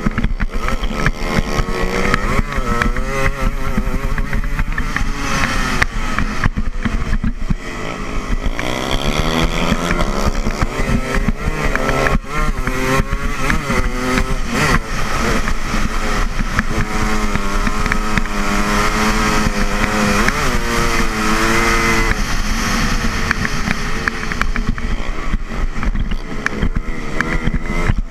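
Dirt bike engine racing hard, heard from on the bike, its pitch repeatedly climbing as the throttle opens and falling as it shuts off.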